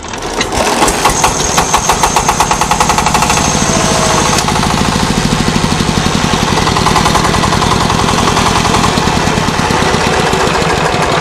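Diesel engine starting up and settling into a steady, fast knocking beat, on its test run after a salvaged part was fitted. A thin whistle sounds over the first few seconds, then stops.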